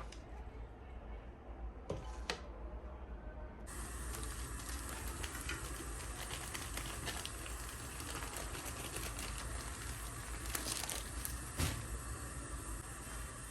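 Chicken frying in hot oil, a dense sizzling and crackling that starts abruptly about four seconds in, after a quieter stretch with a couple of light knocks.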